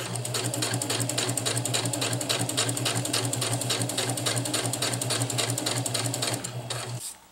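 Husqvarna Viking sewing machine with a walking foot running steadily, stitching a seam in silicone-coated polyester (sil poly) tarp fabric: a steady motor hum under a fast, even clatter of needle strokes. The machine stops just before the end.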